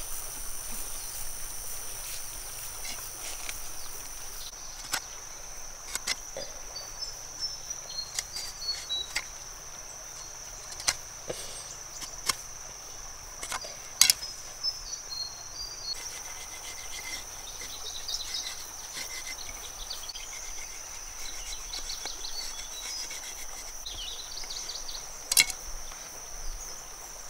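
Steady high-pitched drone of insects, with scattered sharp clicks and taps from handling a bamboo pole and small sticks; the loudest clicks come about halfway and again near the end.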